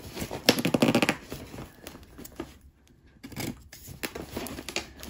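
Parcel packaging being handled and pulled open by hand: irregular rustling, crackling and tearing, loudest about half a second to a second in.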